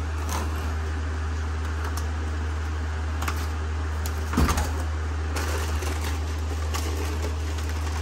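Steady low hum, with faint light clicks and one louder knock about four and a half seconds in.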